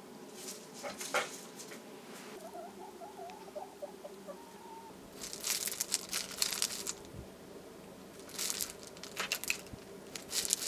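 Hen pecking and scratching in loose gravel: clusters of sharp, crunchy rattles of stones, in groups around one second in and again from about five seconds on. A soft, brief warbling call is heard about two to four seconds in.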